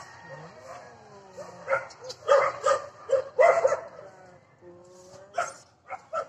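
A dog yipping in a quick run of short barks in the middle, with one more near the end, and whining in between.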